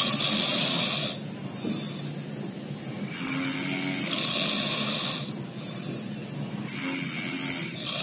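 A sleeping man snoring through his nose: three hissing nasal snores about three to four seconds apart, the middle one the longest, at about two seconds.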